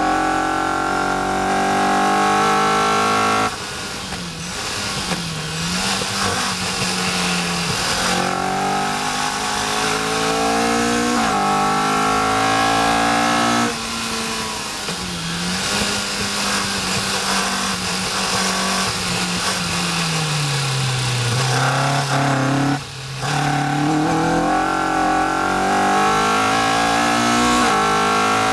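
Caterham R400's four-cylinder engine heard from the open cockpit on a circuit lap, climbing in pitch under full throttle through the gears. Three times it cuts off sharply as the throttle is lifted for a corner, then picks up again and climbs.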